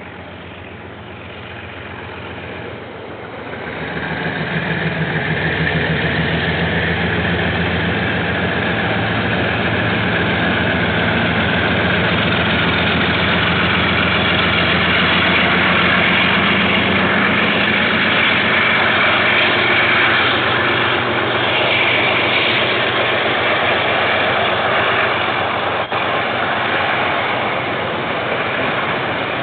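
Diesel locomotive of a passing train, its engine running loud and steady. The sound builds over the first four seconds as it draws near, then holds.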